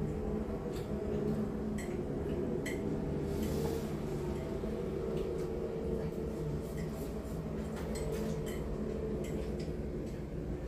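Forks clicking and scraping against plates in scattered, irregular taps as two people eat noodles fast, over a steady low hum.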